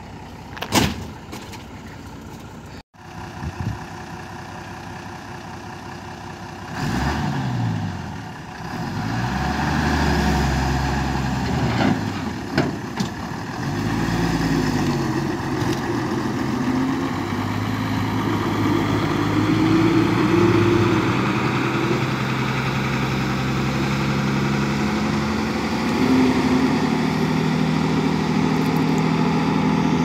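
A heavy vehicle's diesel engine revving up and down several times, then running at a steadier, higher speed. There is a sharp knock about a second in.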